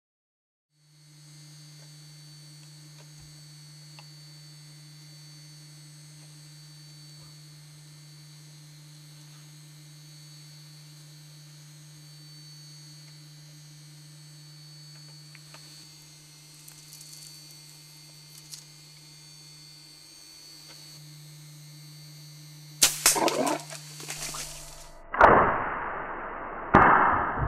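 Steady electrical hum of a night-vision camera's sound track. In the last few seconds come loud sudden noises: a shot from a Mathews DXT compound bow at a leopard on the bait, and the commotion as the cat bolts.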